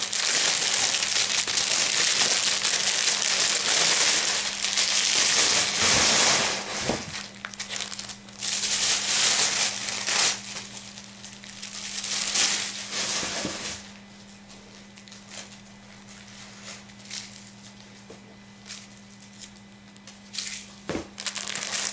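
Plastic packaging crinkling and rustling as clothing is handled and unwrapped: loud and continuous for the first several seconds, then in separate bursts, dying down to a few faint rustles in the last third, over a faint steady hum.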